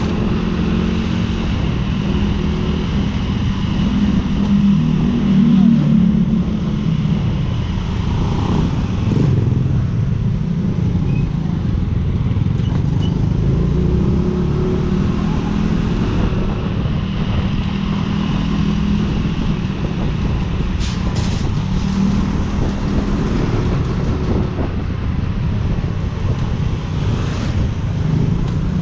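Small motor scooter's engine running steadily under way, a continuous low drone with road noise, swelling briefly about five seconds in.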